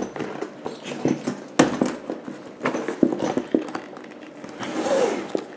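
Louis Vuitton Keepall 55 monogram canvas bag being handled and turned over: rustling of the coated canvas and leather with scattered sharp clicks and knocks, the loudest about a second and a half in, and a louder rustle near the end.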